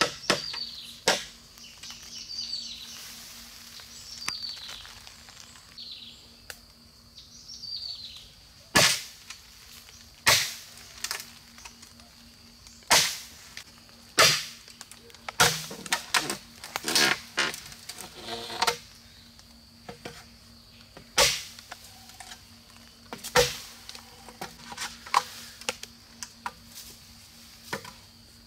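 Sharp knocks at irregular intervals, twenty or so, bunched closer together in the middle. In the first several seconds a bird gives short falling chirps, about one a second.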